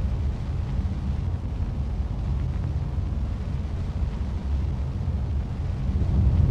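A deep, steady rumble with no clear pitch, easing a little through the middle and swelling again near the end.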